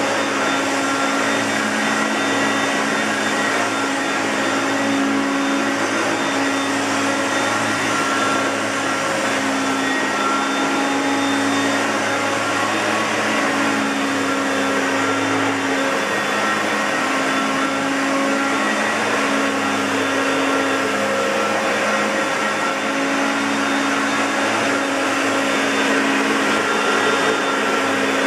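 Hoover Concept Two Electronic upright vacuum cleaner running steadily: a constant motor and airflow noise with a hum whose pitch wavers slightly every second or two.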